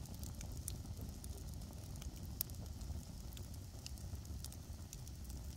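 Campfire crackling: scattered sharp pops, one louder about two and a half seconds in, over a low steady rumble.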